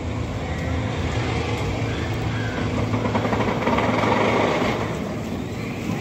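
Diesel engines of excavators and other construction machinery running steadily on a building site, growing louder for a moment a little past the middle.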